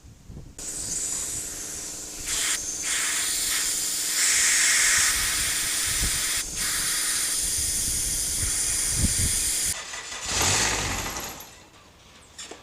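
Compressed air blown back through a Kubota's diesel fuel strainer to clear out water and gelled fuel: a loud, steady hiss lasting about nine seconds with a couple of brief breaks, then a shorter blast near the end.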